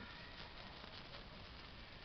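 Faint fizzing and light crackling of a burning sparkler.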